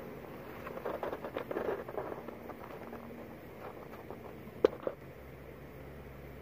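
Handling noise from a camera being carried and set down: a flurry of rustles and soft taps, then two sharp knocks in quick succession a little past the middle.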